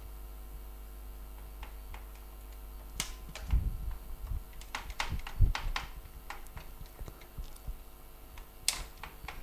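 Scattered light clicks and taps at irregular intervals, clustered in the middle and again near the end, over a faint steady low hum.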